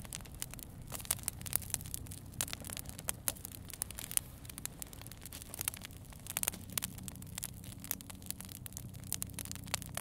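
Wood campfire burning, with irregular sharp crackles and pops over a low steady rumble.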